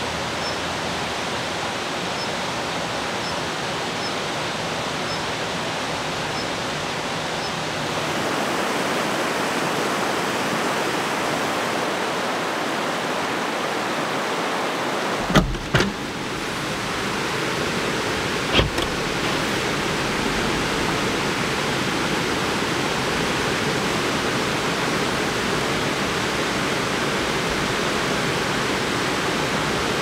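Steady rush of a valley stream running high after heavy overnight rain, like a waterfall. About halfway through, a few sharp knocks as the SUV's rear door is opened, with one more knock a few seconds later.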